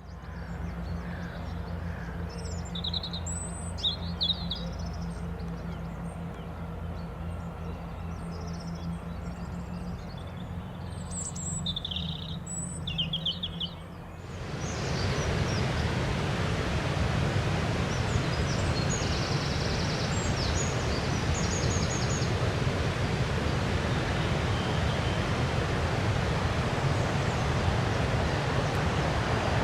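Small birds chirping over a low steady hum. About halfway through, a louder steady rushing noise sets in and continues, with faint bird calls still above it.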